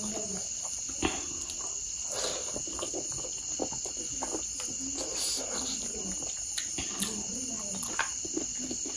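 Crickets trilling steadily, a continuous high-pitched chorus, with faint low voices and scattered small clicks and taps.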